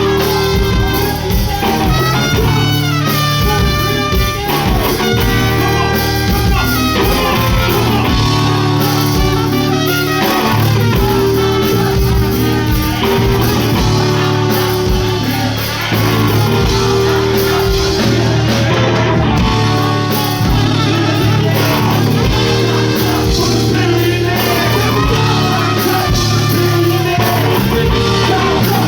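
Live band playing rock-style music, with guitar over a steady bass and drums and a melodic lead line bending in pitch above.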